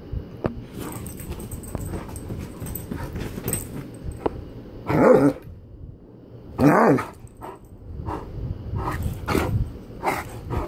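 A Great Dane growling and grumbling in play, with bedding rustling under it, and two loud short barking cries about five and seven seconds in.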